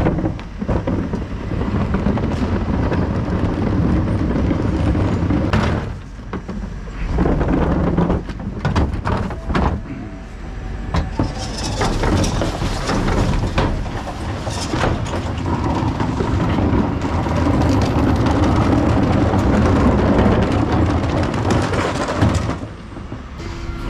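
Dennis Elite refuse truck running at the rear while a plastic wheelie bin is rumbled over tarmac and emptied, with clanks and knocks from the rear bin lift.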